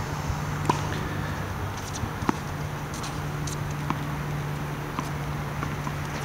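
Tennis ball struck by racquets and bouncing on a hard court: four sharp pops spaced about a second or more apart, the first two loudest, over a steady low hum.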